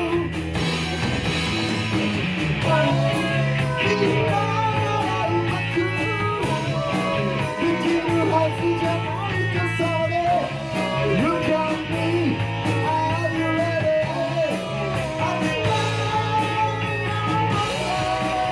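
Rock music from a band with guitars, a melodic lead line running over a steady accompaniment.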